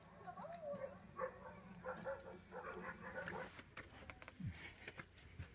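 Yellow Labrador whining softly in a series of short, high, wavering whimpers.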